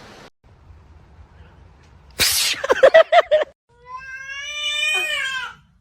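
A domestic cat vocalising: about two seconds in, a short noisy burst and a quick run of short calls, then one long drawn-out meow.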